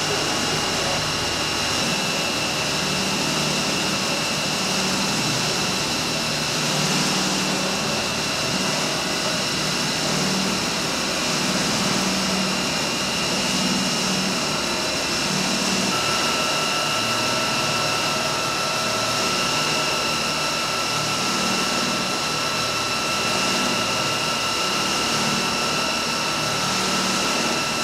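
Factory machinery running steadily: an even mechanical din with several steady high whines. Another steady tone joins about halfway through.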